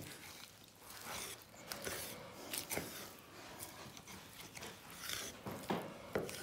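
Faint scattered knocks and scrapes of a knife and hands working on a pork hind leg as it is butchered, with a few sharper taps near the end.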